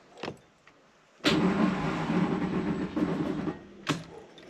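Mazda RX-7 FD's starter motor running for about two seconds as the key is turned, without the rotary engine firing, followed by a single click. It does not sound good: the owner suspects the starter motor is failing and is why the car won't start.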